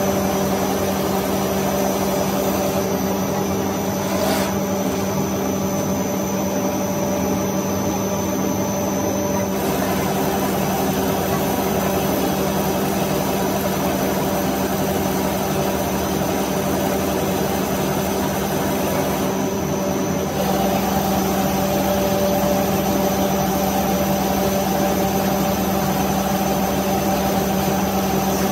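Plastic extruder running: a steady machine hum with a constant low tone over a rushing noise. About two-thirds of the way through it gets slightly louder, with more low rumble.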